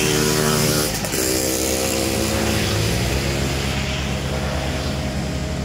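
Yanmar EF514T farm tractor's diesel engine running steadily under load as it drags a disc implement through brush. Its note dips briefly about a second in.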